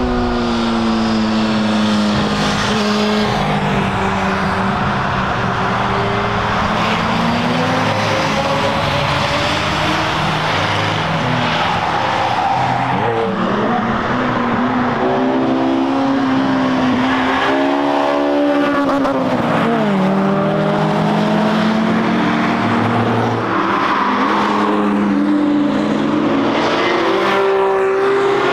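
Performance cars at speed on a race circuit, heard from beside the track. Several engine notes rise and fall through throttle and gear changes, and one car passes close about twenty seconds in, its note dropping sharply as it goes by.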